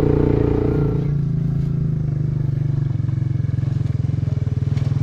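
Quad bike engine running steadily while the bike drives along towing a trailer; its note drops about a second in.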